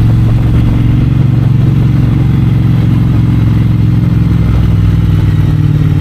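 Triumph Bonneville Bobber's 1200 cc parallel-twin engine and exhaust running steadily under way, heard from the saddle.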